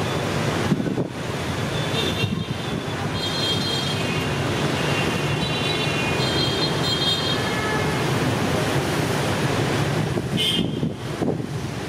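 Steady outdoor road-traffic rumble with wind buffeting the microphone. A few high, thin tones come and go over it.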